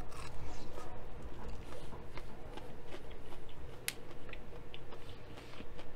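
Close-miked chewing of crispy fried chicken: soft crunching with many small irregular clicks, and one sharper click about four seconds in.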